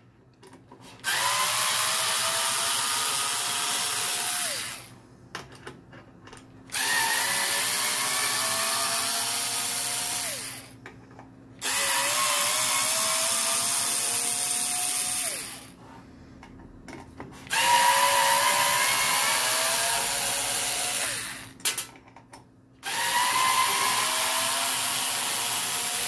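Skil cordless electric screwdriver backing out long machine screws: five runs of about four seconds each, the motor's pitch rising a little through each run as the screw frees up, with small clicks between runs.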